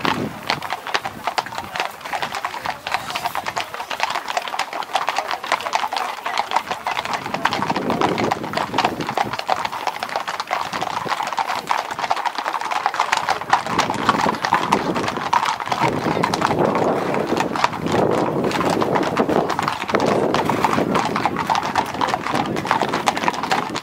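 Hooves of many ridden horses walking on a tarmac lane: a dense clip-clop of overlapping hoofbeats.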